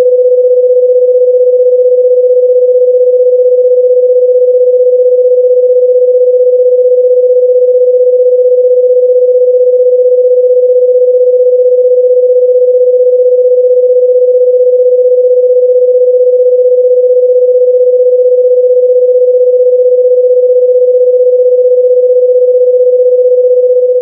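Electronic sine-wave tone held at one steady mid pitch, loud and unchanging, with no other sound.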